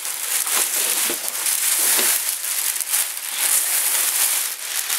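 Plastic bag crinkling as it is pulled off a speaker cabinet: a dense, continuous rustle with a few sharper crackles.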